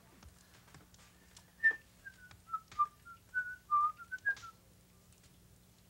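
A person whistling a short, quick tune of about a dozen brief notes, with a few light clicks among them.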